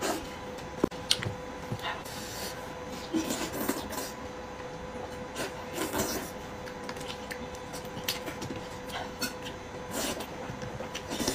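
Close-up eating sounds: wet smacking, sucking and chewing as meat is gnawed off a sheep's head, with many short sharp clicks scattered throughout.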